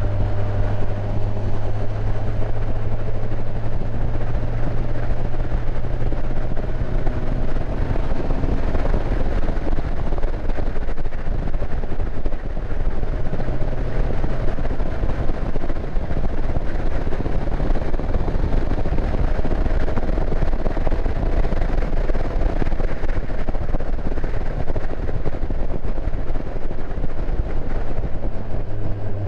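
Motorcycle engine running at steady road speed, with wind rushing over the camera microphone; the engine note drifts slowly up and down as the throttle changes.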